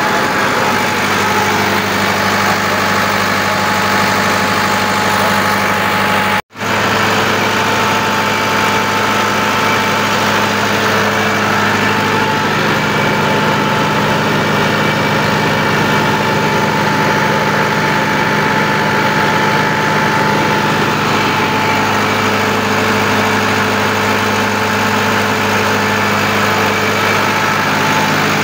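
Freshly overhauled Perkins diesel tractor engine running steadily under load during a load test. The sound cuts out completely for a moment about six seconds in, and the engine's low note shifts slightly about twelve seconds in.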